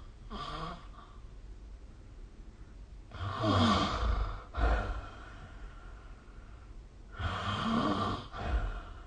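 A sleeping person snoring: two loud snoring breaths about four seconds apart, each a drawn-out rasp followed by a brief second burst, with a faint breath near the start.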